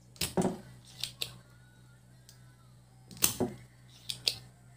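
A series of sharp clicks and knocks, about six scattered irregularly with two close pairs, from a tool working on a CD mixer's circuit board as a part is desoldered. A steady low hum sits underneath.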